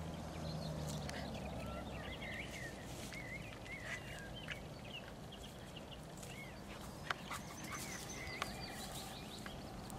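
Small birds chirping and singing in quick short phrases over a steady outdoor background rumble. A low hum fades out about a second in, and there are two sharp clicks, about seven and eight and a half seconds in.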